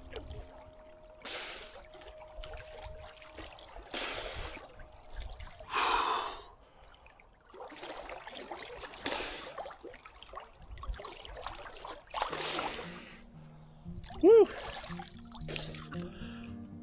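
A swimmer's sharp gasping breaths in cold sea water, with the swish and splash of water around him, and a louder voiced gasp about six seconds in and a brief loud exclamation near the end. Soft background music plays under the start and again near the end.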